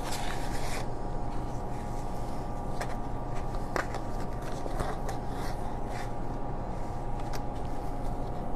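Light clicks and rustles of fabric and sewing clips being handled, over a steady background hum.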